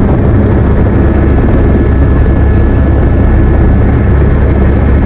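Helicopter in flight, heard from on board: a loud, steady, deep drone of rotor and engine, with a thin steady whine above it.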